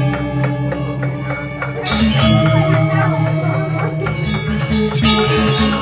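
Balinese gamelan music: bronze gongs and metallophones ringing in layered steady tones over a low, pulsing bass.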